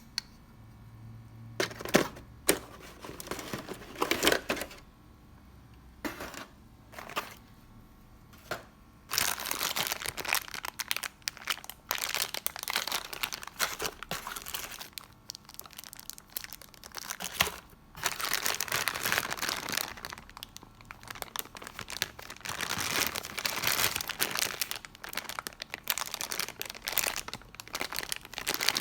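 Packaging crinkling and rustling as it is handled: a few scattered rustles at first, then from about nine seconds in, steady crinkling with short pauses.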